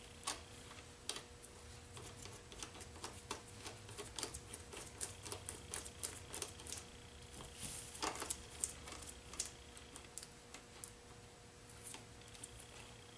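Front brake-cable adjusting nut at the brake arm of a 1970 Honda CT70 being turned by hand, giving a run of small irregular clicks as it catches in its notches.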